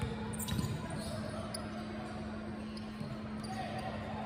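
Basketball game in a gym: the ball bouncing on the court floor in sharp separate impacts, the loudest about half a second in, over a steady low hum.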